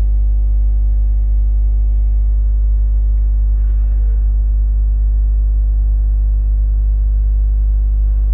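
Loud, steady electrical hum: a low buzz with a ladder of overtones that never changes. The scrape of a spatula stirring the masala in the nonstick pan is barely heard about four seconds in.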